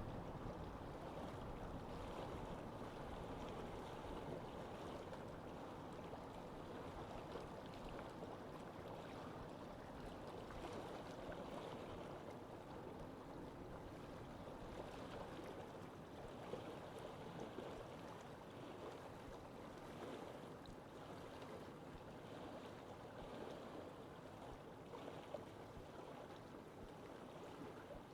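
Steady lake ambience: moving water and wind making an even, soft wash of noise, with a low rumble that eases off in the first few seconds.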